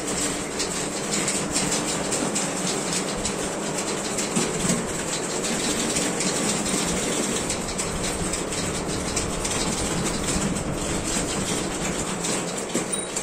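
Manual typewriters clattering as several typists type at once: a dense, continuous run of key strikes.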